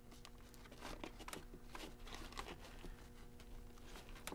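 Faint rustling and scattered small clicks of a webbing strap being worked through its buckle as the front strap of a kayak seat is fastened, over a faint steady hum.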